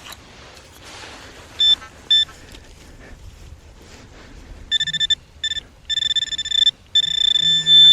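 Metal detector giving its target tone over a buried find. Two short beeps come first, then a run of repeated beeps at one pitch that grow longer toward the end as the target is homed in on.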